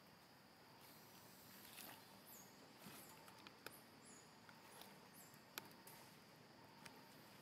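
Near silence: faint outdoor ambience with a steady high insect drone, scattered brief high-pitched chirps and a few soft clicks.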